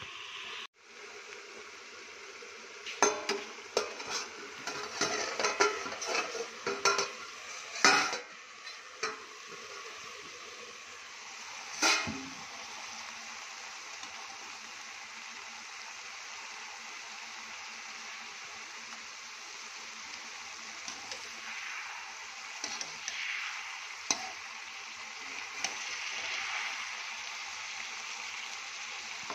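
Silkworm pupae sizzling in a wok, with a burst of metal clanking and scraping from the steel plate lid and a metal spatula against the wok in the first dozen seconds. After that, a steady sizzle with a few light spatula scrapes near the end.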